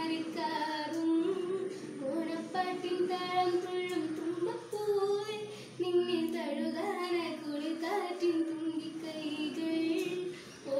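A young female voice singing a Malayalam Onam song, holding and gliding between notes with short pauses for breath.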